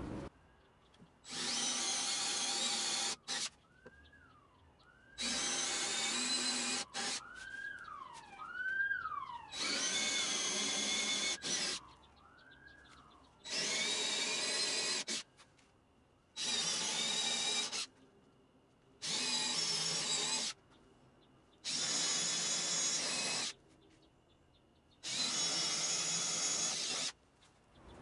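Cordless drill with a Forstner bit boring shallow counterbore holes into construction-grade lumber, each hole drilled until the bit sits flush with the board. Eight bursts of about one and a half to two seconds each, with short pauses between holes.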